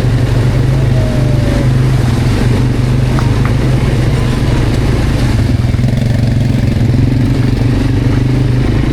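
Quad bike (ATV) engine running steadily under way, a continuous low engine hum with rough noise over it.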